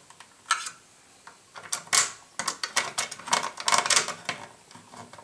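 Irregular clicks, taps and light rattles of hands tightening the retaining screws of a Dell OptiPlex 745 CPU heatsink and handling the heatsink in the computer case.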